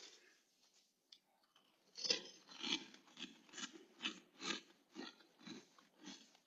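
A person chewing crunchy food close to the microphone, starting about two seconds in, with about two crunches a second that grow fainter toward the end.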